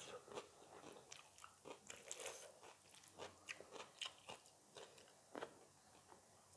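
Faint, close-up eating sounds: irregular crunchy bites and chewing of food in the mouth.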